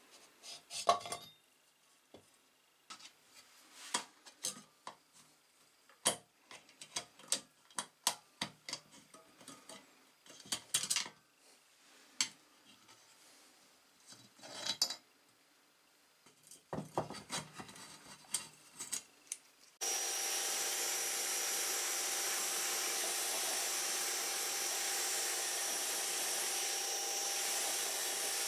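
Small metal engine parts clinking and knocking as they are handled and pried apart during engine teardown. About two-thirds of the way through, a pressure washer starts suddenly and runs steadily, its jet hissing against metal crankcase parts. The washer is the loudest sound.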